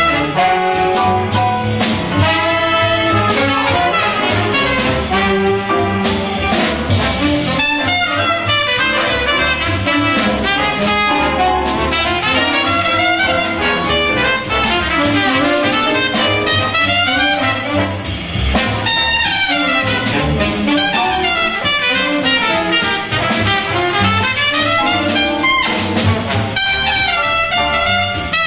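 Jazz big band playing, trumpets and trombones prominent over saxophones, double bass, drums and piano.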